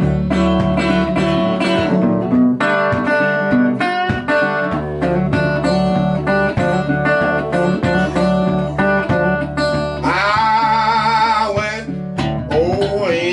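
Resonator guitar played as blues with a bottleneck slide: a steady picked bass pattern under quick plucked and slid treble notes. About ten seconds in, a held note wavers for a second or so.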